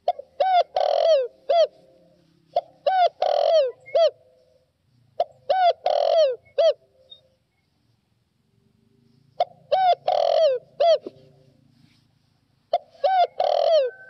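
Spotted dove singing its cooing song: five phrases, each a run of short coos around one longer, louder note, spaced about two to three seconds apart with a longer pause before the fourth.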